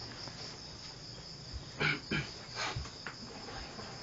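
Crickets chirping in a steady high trill, with a few brief knocks about two seconds in.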